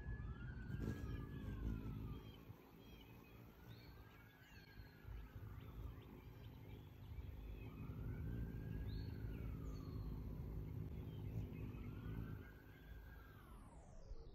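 Distant siren wailing, its pitch rising and falling in four slow sweeps about every three and a half seconds, over a low wind rumble with a few faint bird chirps.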